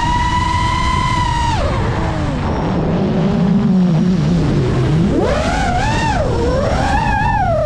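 FPV racing quadcopter's motors whining at a high steady pitch. About a second and a half in the throttle is cut and the whine falls to a low hum as the drone drops. About five seconds in it is punched back up to a high, wavering whine as the throttle is worked, over a steady rush of wind.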